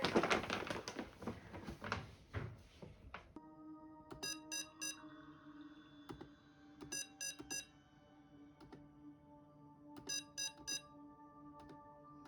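Electronic beeper sounding three quick beeps at a time, three times about three seconds apart, over soft sustained music. Rustling and handling clicks fill the first few seconds.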